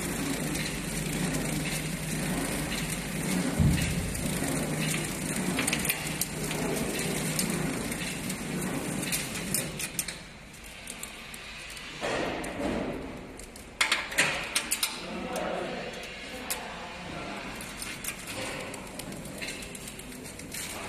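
Light metallic clicks and taps as screws and a bracket are fitted by hand to a stainless-steel conveyor frame, with a low knock a few seconds in, over a steady low hum that fades about halfway through.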